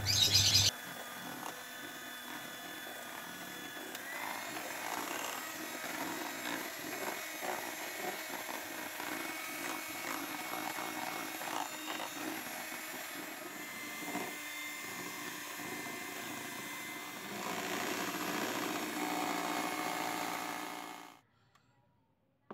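Electric hand mixer running at high speed, its beaters whipping eggs and instant cake mix into a thick batter; the motor gets a little louder for the last few seconds, then is switched off abruptly near the end.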